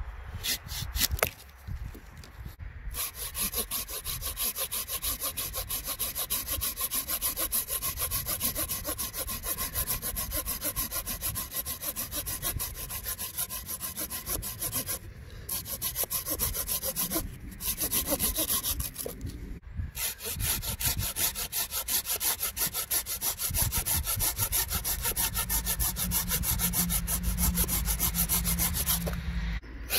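Silky Pocketboy folding hand saw, with non-set teeth, cutting fresh green wood. A few strokes through a small branch come first, then rapid, steady back-and-forth sawing through a log, broken by a few short pauses.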